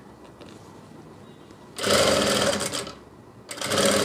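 Sewing machine stitching in two short runs: the first starts about two seconds in and lasts about a second, the second starts near the end.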